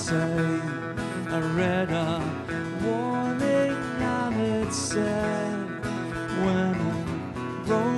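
Live band music: two acoustic guitars strummed along with an electric guitar, under a man singing the lead vocal.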